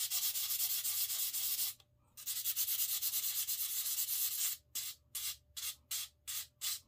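A fishing rod section being hand-sanded with a small scrap of used sandpaper after being cut to size. Quick rasping strokes run together, break off briefly about two seconds in, start again, then turn into separate short strokes about two or three a second near the end.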